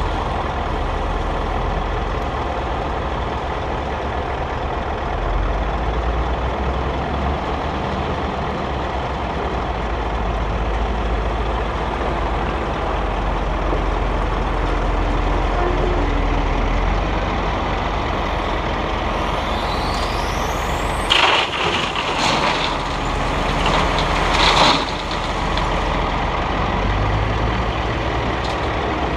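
A heavy diesel engine running steadily, from the 32-ton grab lorry and the wheel loader working beside it. About two-thirds of the way through come two loud crashing bursts a few seconds apart, as the loader's bucket tips rubble into the lorry's steel body.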